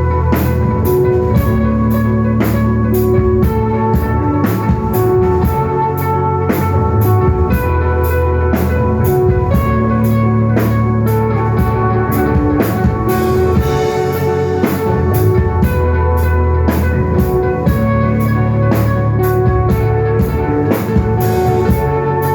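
Desert rock band playing live: drum kit keeping a steady beat under sustained bass notes and electric guitar, with no singing.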